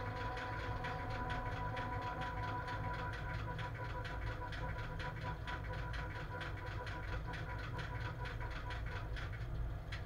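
Inside the cab of a class 130 electric locomotive hauling a heavy freight train: a steady low rumble with rapid, regular ticking that stops near the end, and a faint steady whine that fades away.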